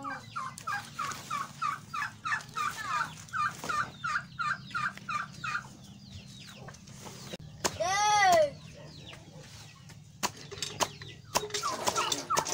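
Chickens clucking: a steady run of short clucks, about two or three a second, for the first five seconds. About eight seconds in, a single loud squawk that rises and falls, then a few sharp knocks and quicker clucking and chirping near the end.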